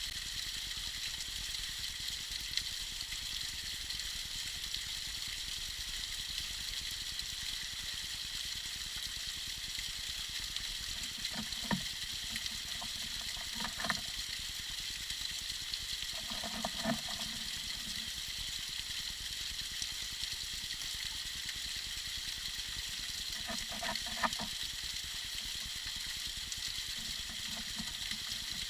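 Tiny icy waterfall trickling and splashing, a steady high hiss of falling water, with a few short lower-pitched gurgles standing out now and then.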